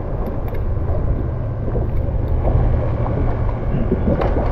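Wind buffeting the microphone: a steady, choppy low rumble, with a brief knock shortly before the end.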